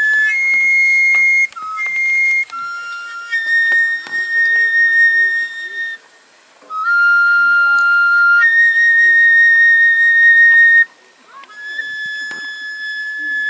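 Small wooden flute playing a slow, high melody of long held notes, with short breaks between phrases about six and eleven seconds in.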